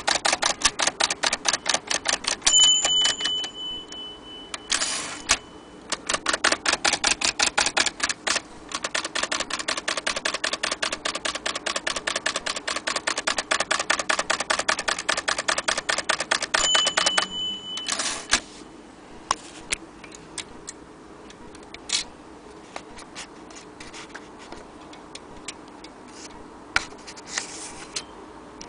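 Good Companion 3 manual typewriter being typed on in fast runs of key strikes. Twice the margin bell rings, about two seconds in and again near 17 seconds, and each time a carriage return follows. Only scattered clicks come in the last ten seconds.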